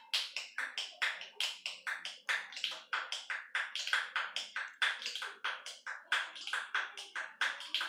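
Both hands snapping fingers in a quick, steady rhythm, several crisp snaps a second, played as a percussive tune.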